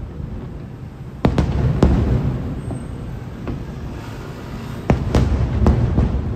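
Aerial firework shells bursting at a distance: a cluster of sharp bangs a little over a second in, a faint one midway, and another cluster near the end, each bang followed by a low rumble.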